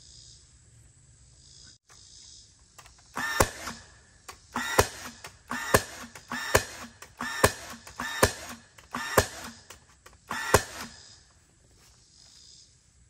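Battery-powered cordless nail gun driving a run of about eight nails into 2x4 lumber, roughly one shot a second. Each shot is a sharp crack with a brief whir.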